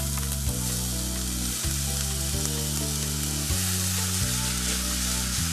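Finely chopped vegetables hitting hot oil and sizzling steadily as they are stir-fried with a spatula in an enamelled pot. They go into oil that already holds cumin seeds fried until fragrant.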